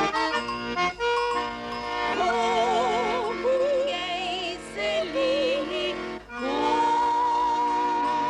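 Accordion music in a traditional folk style, with a wavering melody line in the middle and a short break about six seconds in before a long held note.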